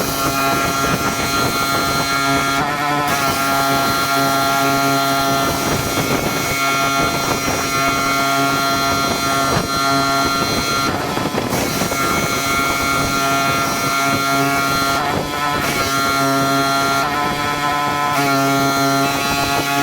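Pressure washer running steadily at work: an engine hum under the hiss of the high-pressure spray. The spray hiss cuts out briefly a few times.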